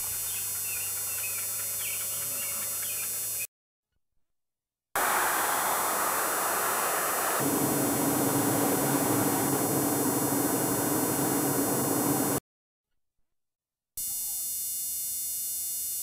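Car cabin noise from driving on a highway: an even rush of tyres and engine, with a steady low drone joining partway through. It is bracketed by short stretches of dead silence and, before and after, quieter background noise with a steady electrical hum.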